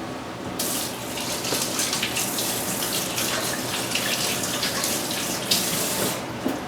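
Water running from a kitchen tap into a sink, turned on about half a second in and shut off about six seconds in.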